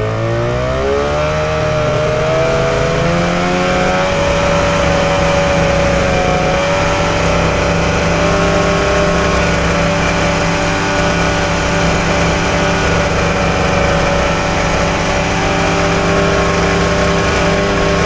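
Snowmobile engine accelerating: its pitch climbs over the first four seconds or so, then holds at steady high revs.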